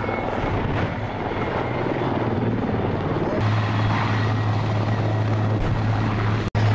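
Denel Rooivalk attack helicopter flying low, its main rotor beating rapidly over a steady low drone. The sound drops out for an instant near the end.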